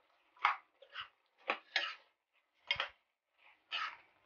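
Perforated metal ladle scraping and knocking against a kadai while stirring thick gravy with fried pieces. About seven short strokes, unevenly spaced.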